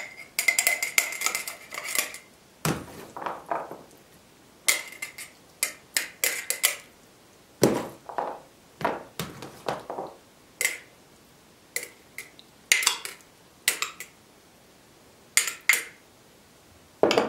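Metal spoon scraping and clinking against glass jars and a plastic basin as a chickpea and pork mixture is spooned and packed into the jars: irregular clinks and scrapes, about one a second, several with a brief ringing tone.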